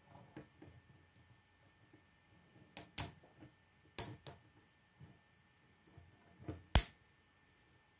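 Small plastic K'nex building pieces clicking as they are pressed and snapped together by hand: about half a dozen sharp clicks, two close pairs a few seconds in and the loudest near the end, with faint rustling of handled parts between.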